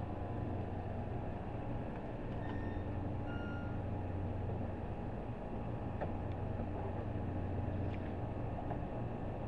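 NJ Transit commuter train standing at the platform, giving off a steady low hum. Two short tones, the second lower than the first, sound about two and a half and three and a half seconds in.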